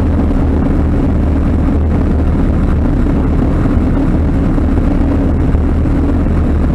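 Avian Adventurer homebuilt light aircraft's engine and propeller running steadily in flight, a constant low drone mixed with wind rush on an airframe-mounted GoPro.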